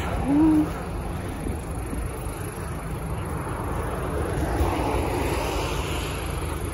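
Steady wind noise buffeting a phone's microphone over a low rumble of city traffic.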